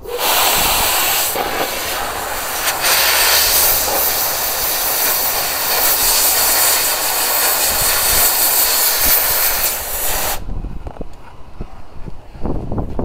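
Compressed air rushing out of a Central Machinery 20-lb pressurized abrasive blaster's hose and nozzle in a loud, steady hiss that cuts off suddenly about ten seconds in, followed by a few light handling knocks.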